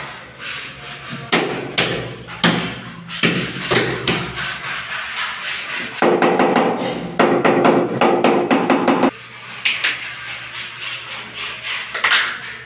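Rubber mallet tapping a large wall tile to bed it into the tile adhesive. A few separate knocks, then a quick run of rapid taps for about three seconds that stops abruptly, then lighter knocks.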